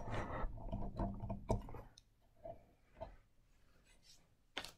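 Handling noise as the camera is moved and set down: rustling and light clicks in the first couple of seconds, then a few faint taps.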